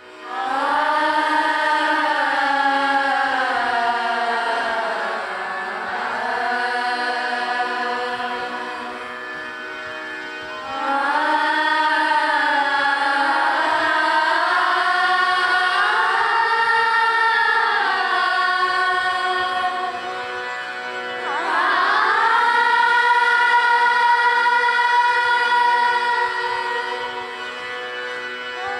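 A choir of children and young women singing a semi-classical Indian devotional song to harmonium accompaniment. The singing comes in three long held phrases, the second and third each opening with a rising sweep in pitch, over a steady harmonium drone.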